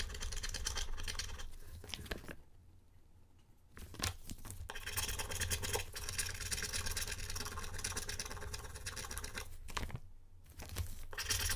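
Wooden stick scraping the scratch-off coating of a paper flyer: rapid scratchy rubbing, stopping for about a second and a half near the start and briefly again near the end.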